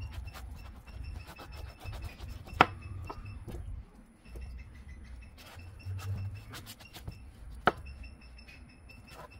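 Kitchen knife cutting through a peeled baby jackfruit on a plastic chopping board, with small scraping clicks. There are two sharp knocks of the blade on the board, a loud one about two and a half seconds in and another near the end.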